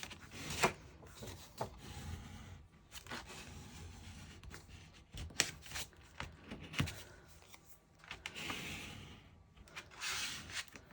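Hands rubbing and pressing down on cardstock to bond a freshly stuck seam, with paper rustles and scattered light taps, and longer rubbing strokes near the end.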